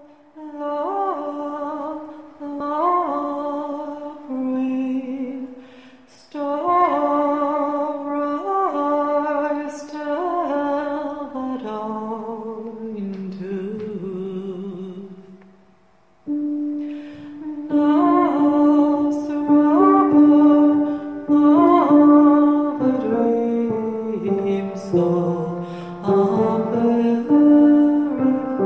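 A woman singing a slow melody in long held notes that glide between pitches, with a short pause about halfway through.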